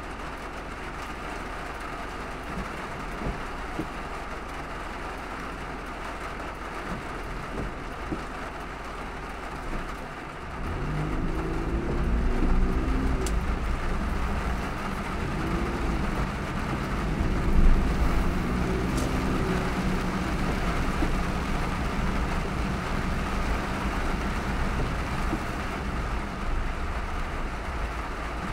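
Car driving in heavy rain: a steady hiss of rain and road noise, joined about ten seconds in by a louder, low engine rumble that swells for a while and stays up.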